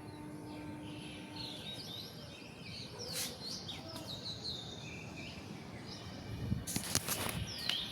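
Small birds chirping with many short, quick calls over a low background hum, with a few sharp knocks about three seconds in and again near the end.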